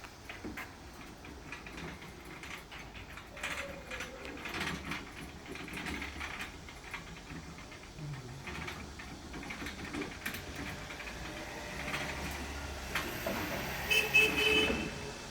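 Scattered clanks and knocks of work on an air conditioner outdoor unit. Near the end a winch motor starts with a steady whine.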